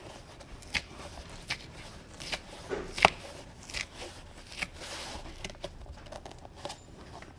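Old convertible-top fabric being peeled away from the top frame it is glued to: irregular short crackles and rustles, the sharpest about three seconds in.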